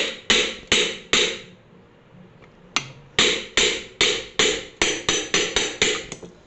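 Hammer blows on a DC ceiling fan's motor housing, knocking it apart against the pull of its stuck-in permanent magnets. Sharp ringing strikes, about two to three a second: four at the start, a pause of about a second and a half, then around ten more.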